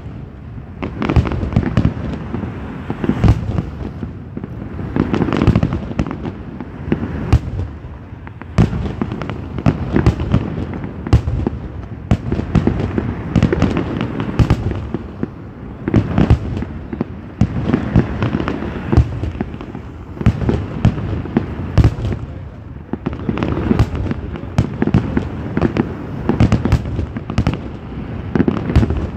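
A fireworks display: shells bursting in rapid, overlapping bangs with crackling, many times a second at the busiest moments and in waves of sharp reports throughout.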